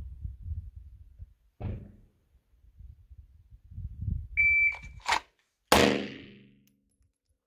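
Shot timer gives one short high beep, and a little over a second later a single handgun shot, the loudest sound, rings out and fades over about a second. A sharp click comes just before the shot. It is a timed draw-and-fire rep from the holster, and the timer starts it with the beep.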